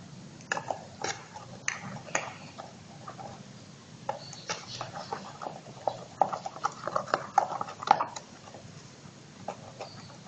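Chopsticks stirring a slime mixture and clicking against the side of its container, in quick irregular taps that come thickest between about four and eight seconds in.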